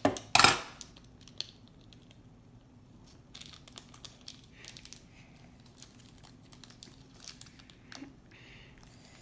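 Toy packaging crinkling and rustling with scattered sharp clicks as a Lost Kitties blind box is unwrapped, with one loud burst of crinkling about half a second in.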